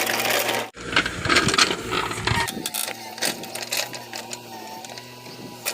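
A mini excavator working: its engine running with repeated mechanical clicks, clanks and knocks, broken by a sudden drop-out just under a second in.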